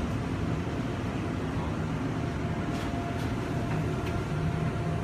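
Steady rumble of a Seoul Metro Line 9 9000-series electric train heard inside the passenger car as it pulls into a station, with a faint steady whine coming in about two seconds in and a second, higher one near the end.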